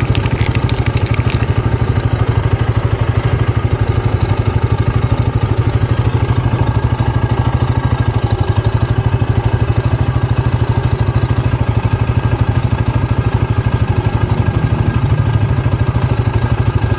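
Single-cylinder motorcycle engine idling steadily with an even rapid throb. It is left running so that freshly sprayed chain lube spreads over the turning drive chain.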